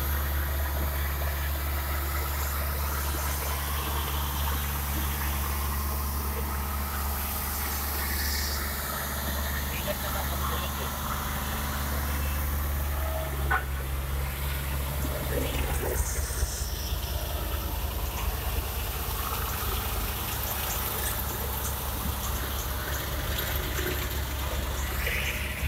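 Diesel engine of a tandem drum road roller running steadily with a low hum while compacting fresh bituminous macadam.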